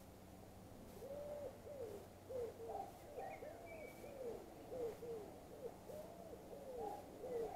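A bird calling in a steady run of short notes that rise and fall, about two a second, starting about a second in, with a brief higher chirp about three seconds in.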